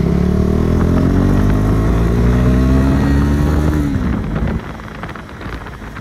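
KTM Duke 390's single-cylinder engine pulling under throttle, its note rising steadily. About four seconds in the note drops away and the sound falls to quieter wind and road noise.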